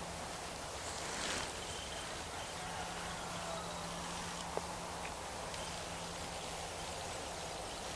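Steady background hiss with a faint low hum, a brief rustle about a second in and a single click about four and a half seconds in.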